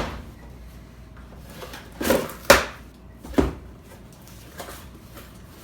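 A USPS priority mail package being handled and opened: a few short knocks and scrapes, the loudest cluster about two to three and a half seconds in.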